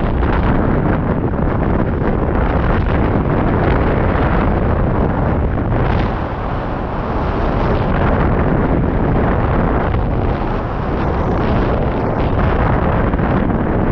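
Wind from the glider's airspeed buffeting the microphone of a camera mounted on a hang glider in flight, a loud steady rush that eases a little about six seconds in and again near eleven seconds.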